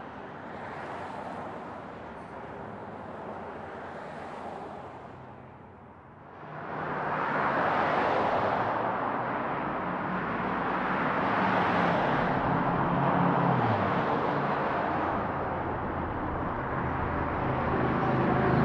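Outdoor ambience of road traffic: a steady rushing noise that swells and fades as vehicles pass. About six seconds in it dips and gives way to a louder, fuller stretch with a low engine hum underneath.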